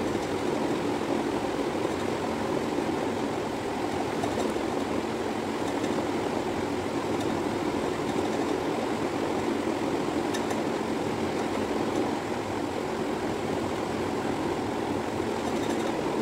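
Steady rushing background noise with no pitch to it, unchanged throughout, with a few faint ticks over it.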